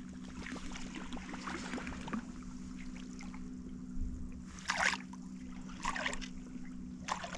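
Water splashing and lapping against a fishing boat, in three short splashes in the second half, over a steady low hum.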